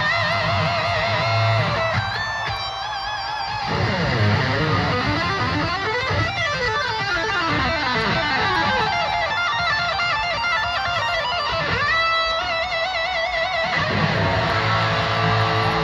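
Lead electric guitar solo played live through a concert sound system, with fast runs sweeping up and down in pitch and held notes bent with wide vibrato.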